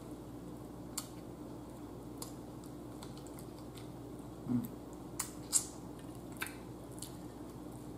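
A person eating air-fried tilapia picked apart by hand, close to the microphone: scattered soft wet smacks and clicks of chewing, over a faint steady room hum.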